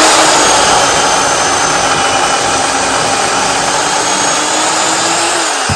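WORX battery-powered electric chainsaw with a freshly sharpened chain cutting through a log, running at a steady pitch under load. Near the end the motor slows and winds down as the cut finishes.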